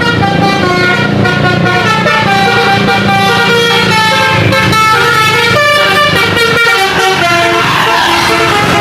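A bus's basuri horn, a multi-tone electric horn, playing a quick melody of stepped notes, with the bus engine running underneath.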